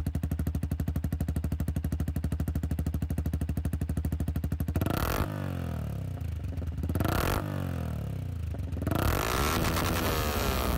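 Yamaha MT-125's single-cylinder 125 cc four-stroke engine idling steadily through an Akrapovič replica exhaust with its silencer insert removed, then revved three times from about five seconds in.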